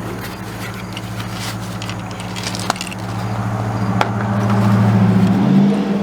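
Steady low engine drone of traffic on the adjacent highway, growing louder through the second half and dropping in pitch near the end, with a couple of sharp clicks.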